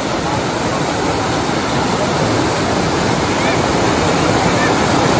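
A swollen, muddy stream rushing fast over rocks: a steady, even rush of water that grows slightly louder toward the end.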